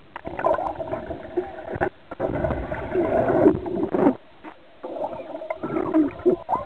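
Muffled underwater sound from a camera under the water: gurgling, bubbling water with wavering sounds that rise and fall in pitch, dropping away briefly about two and four seconds in.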